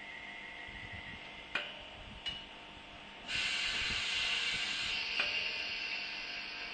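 Compressed air hissing from a train's air system, starting suddenly about halfway and easing a little after a couple of seconds, with a few sharp clicks before it.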